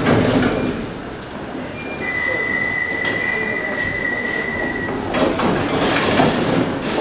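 A60 stock Underground train standing at the platform with its equipment running: a steady high warning tone sounds for about three seconds, then the sliding doors close about five seconds in with a sudden clatter.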